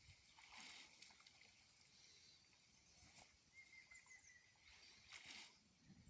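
Faint water splashing as someone wades in a shallow pond: three short sloshes about two seconds apart, with a brief high chirp just after the middle one.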